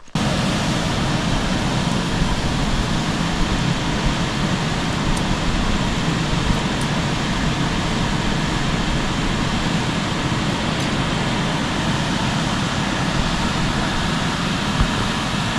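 Steady, loud rushing noise with no rhythm or pitch, starting abruptly and holding an even level throughout.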